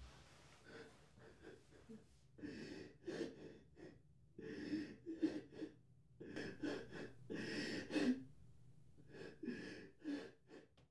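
A teenage boy sobbing, with gasping breaths that come in repeated bursts a second or two long.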